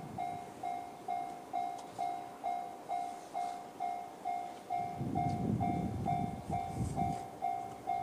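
Japanese railway level-crossing electronic warning bell in the JR standard tone, ringing steadily at about two strikes a second, each strike sharp and then fading. A low rumbling noise swells underneath from about five seconds in.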